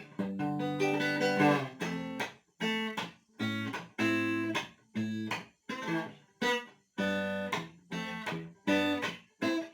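Electric guitar played through a compressor effect (the "orange compressor" setting), a string of short, choppy chord strums with brief gaps between them.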